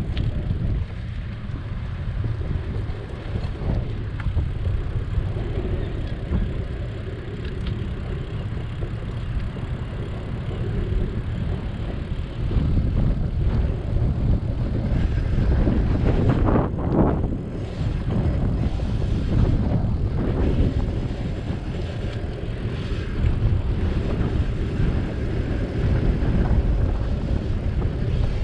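Wind rushing over a bike-mounted microphone while cycling, over a background of city traffic. About two-thirds of the way through, a vehicle passes close by and stands out above the rumble.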